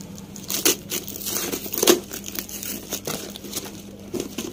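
Cardboard shipping box being torn open by hand: irregular crinkling and tearing with a few sharp rips about a second apart, the loudest about two seconds in.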